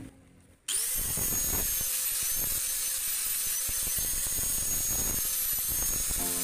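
Electric angle grinder fitted with a sanding disc starts abruptly under a second in and runs with a steady high whine, carving and sanding a wooden knife handle.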